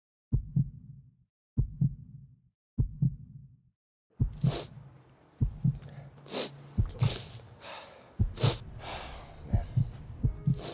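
Heartbeat sound effect: three slow double thumps, lub-dub, then from about four seconds in the beats carry on under a swell of noise with several sharp, bright hits, a cinematic intro building toward the music.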